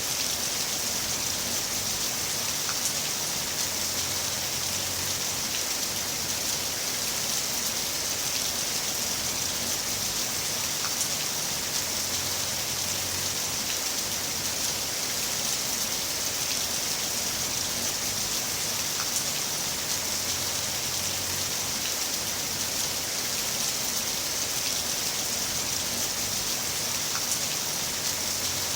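Heavy rain falling steadily, an even hiss with scattered individual drop ticks.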